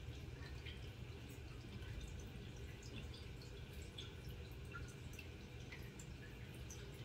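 Aquarium water bubbling, faint: scattered small drips and plinks of air bubbles over a steady low hum.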